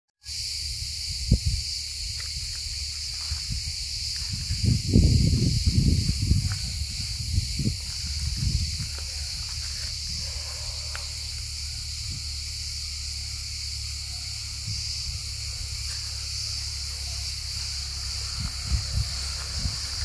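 Cicadas chirring in a steady, high-pitched drone, with low rumbling bursts on the microphone between about four and nine seconds in and a few soft thumps.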